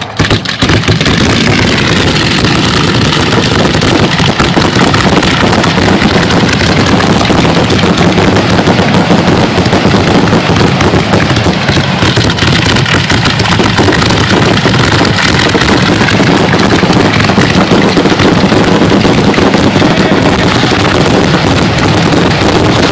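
Fireworks finale barrage: aerial shells launching from mortars and bursting in rapid, continuous succession, a loud unbroken rattle of reports with no pause.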